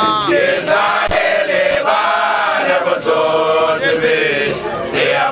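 Basotho initiates (makoloane) singing an initiation chant together, several voices holding long notes that slide in pitch.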